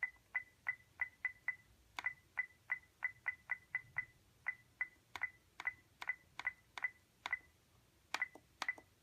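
iRobot Roomba 880 beeping at each press of its scheduling buttons while the time is stepped forward: a run of about two dozen short, identical high beeps, each with a click, roughly three a second with a couple of brief pauses.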